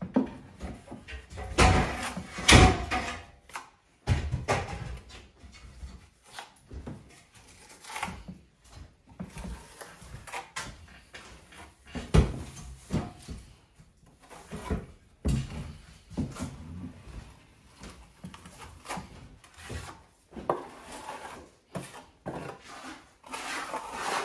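Irregular knocks and clunks of wood being handled and struck during building work, the loudest two about two seconds in and another near the middle.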